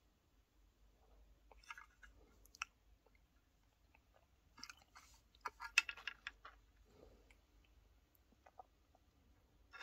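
Handling noise from the opened ProCo Rat distortion pedal being turned in the hands: scattered light clicks and rustles, with a short run of quick clicks and small knocks about five to six and a half seconds in.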